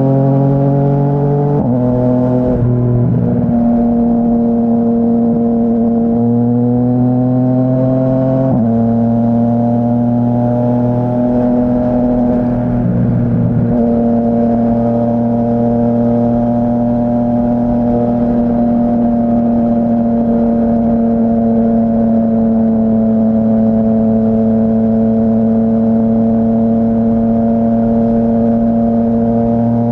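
A 2017 Yamaha Tracer 900's three-cylinder engine running through a full Dominator HP3 aftermarket exhaust while riding. The note climbs and drops sharply twice, about two seconds in and again about eight seconds in, then settles into a steady, loud cruise that sags slightly in pitch.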